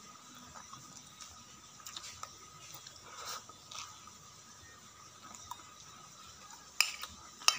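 Quiet close-up chewing and slurping of a mouthful of rice and rice vermicelli. Near the end, a metal spoon clinks sharply twice against the bowl.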